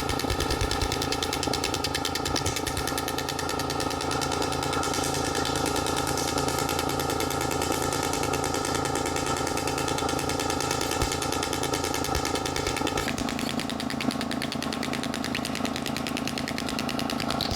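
Radial shockwave therapy handpiece firing a rapid, steady stream of pulses, a continuous machine-gun-like rattle. Its tone changes a few seconds before the end.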